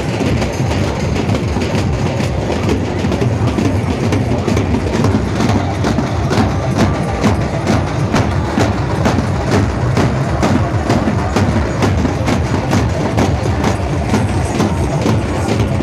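Percussion beating a fast, steady rhythm, over the dense noise of an outdoor crowd. The strokes grow sharper and more even about five seconds in.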